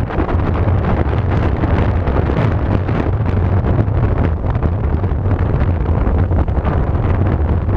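Loud, steady wind buffeting on the microphone of a camera mounted on a vehicle driving across a rough field, a continuous low rumble with hiss above it.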